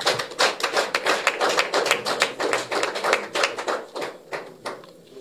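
A small group of people clapping, quick overlapping claps that thin out and fade near the end.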